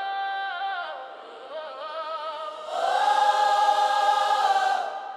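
Choir singing wordless sustained notes. A held chord falls away, a quieter phrase of gliding notes follows, and a louder held chord swells in about halfway through, then fades near the end.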